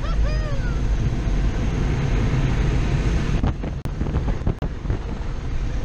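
Automatic car wash dryer blower blasting air in through an open car window, the air buffeting the microphone in a loud steady rush. A short whooping voice sounds at the start, and a cluster of knocks and rustles comes around the middle.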